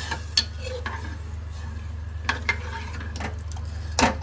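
Steel ladle stirring rice and water in an aluminium pressure cooker, scraping and clinking against the pot now and then, with a louder clink near the end as the ladle is lifted out. A steady low hum runs underneath.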